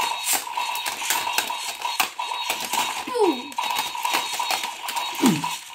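Silverlit Robo Kombat toy battle robots swinging their arms and striking each other: rapid, irregular plastic clicking and clattering over the whir of their small motors.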